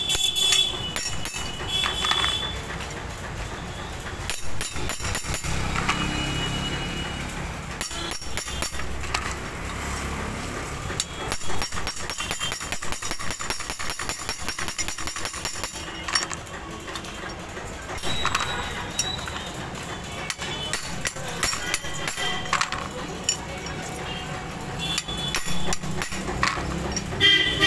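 Hammer striking a steel ring spanner used as a drift, metal on metal, driving the lower steering cone race down onto a Hero Splendor Plus fork stem. The taps come in irregular bunches, with a fast run of rapid taps in the middle.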